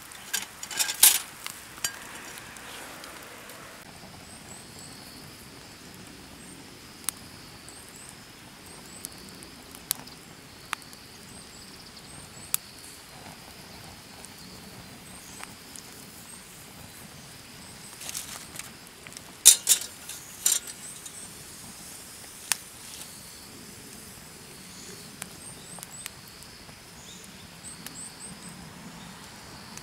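Scattered sharp clicks and cracks, the loudest about a second in and a pair around twenty seconds in, over a faint steady insect drone and a few short high bird chirps.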